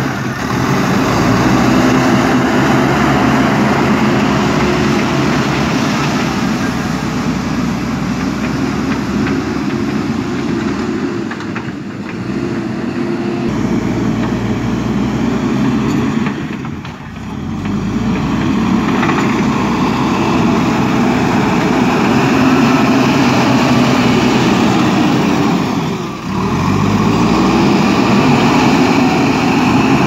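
A JCB 3DX Super backhoe loader's diesel engine runs loudly under load as the machine pushes dirt with its front bucket. The engine note rises in pitch a few times as it revs up to work.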